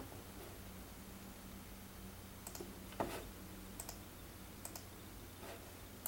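A few scattered clicks of a computer mouse and keyboard, about five of them in the second half, the loudest a sharp knock about three seconds in, over a faint low hum.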